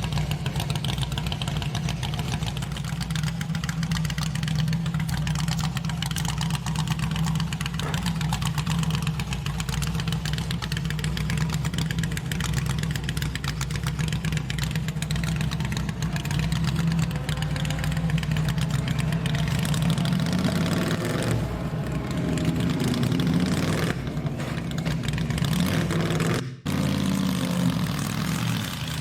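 A car engine idling with a steady hum, its pitch then rising and falling over the last several seconds. About 26 seconds in it cuts off for an instant and a different engine sound follows.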